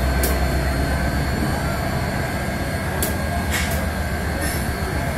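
Freight train running by: a steady low rumble with a few sharp clicks.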